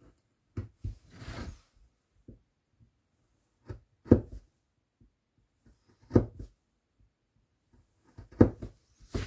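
Hand woodcarving: a scraping cut into the wood about a second in, then three sharp knocks roughly two seconds apart, with a few faint taps between.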